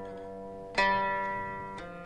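Background music of slow, single plucked string notes, each struck sharply and left to ring and fade. One note dies away, a new one sounds just under a second in, and a softer one comes near the end.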